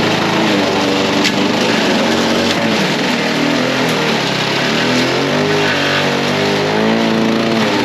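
Victa Charger petrol lawn mower running under load while scalping grass off a concrete driveway, its engine note wavering up and down as it cuts.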